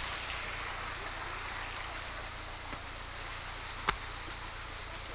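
Steady rushing of water from a small forest waterfall, with one sharp click a little under four seconds in.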